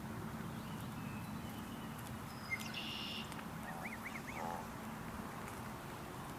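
Birds calling: a short cluster of high calls about halfway in, then a quick run of arched chirps, over a steady low background hum.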